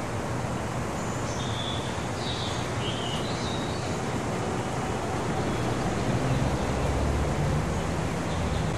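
Steady outdoor background noise with a few short high chirps about one to three seconds in. A low rumble swells near the end.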